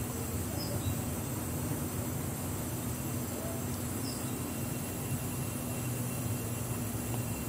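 Steady low background rumble with a constant hum, unchanging throughout.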